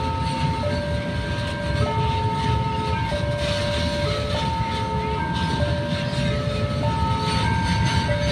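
Railroad level-crossing warning alarm sounding an electronic two-tone signal that switches pitch about every second and a quarter, over the steady low rumble and wheel noise of a passing freight train.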